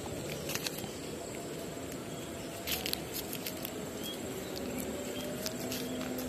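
Quiet creekside ambience: a steady high insect buzz, with a few soft clicks and rustles from hands handling the fishing pole and line.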